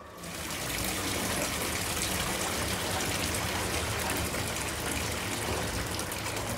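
Water running steadily in a continuous splashing rush. It starts abruptly at the beginning and holds level throughout.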